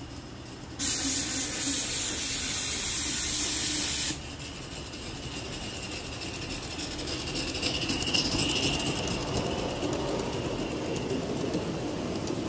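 A garden-scale steam train passing. A loud steam hiss starts suddenly and cuts off after about three seconds, followed by the steady rolling clatter of the locomotive's and cars' wheels on the rails, with a thin high tone swelling briefly about eight seconds in.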